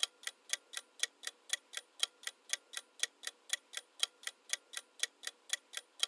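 Ticking clock sound effect of a quiz countdown timer, a steady tick-tock at about four ticks a second, alternating slightly louder and softer.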